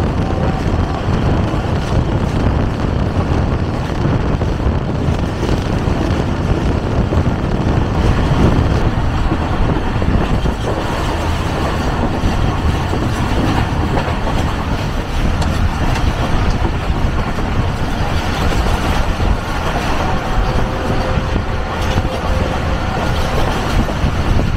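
Passenger train running at speed, wheels on the rails giving a steady, loud rumble, heard from the open side of a moving coach.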